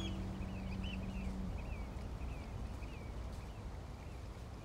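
Birds chirping in quick, short, repeated notes over a low outdoor rumble, with a held music drone that stops about a second and a half in.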